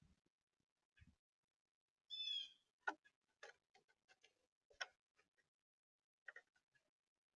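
Birds at a feeder: a short bird call about two seconds in, then a scatter of irregular sharp clicks and taps from beaks and feet on the feeder.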